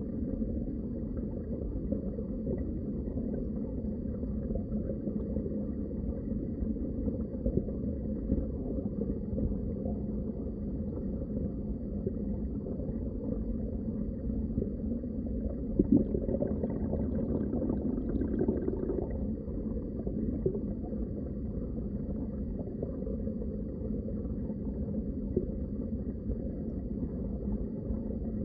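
Underwater water ambience: a steady, muffled low rumble of moving water, with a brief thump about 16 seconds in.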